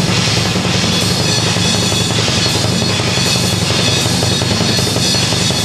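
Yamaha drum kit played as a busy, unbroken solo, with bass drum, snare and cymbals sounding together.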